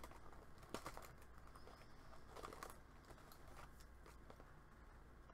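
Faint rustling and a few soft clicks and taps of paper stickers being handled and sorted through, over a low steady hum of room tone.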